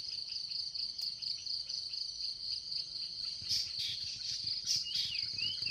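Steady, high-pitched drone of insects in the forest canopy, with a few short gliding chirps from a bird near the end.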